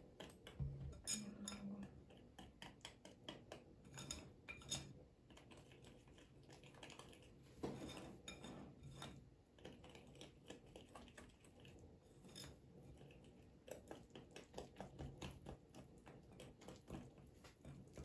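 Wire whisk stirring chocolate cupcake batter in a ceramic bowl: faint, irregular clicks and scrapes as the whisk knocks against the bowl.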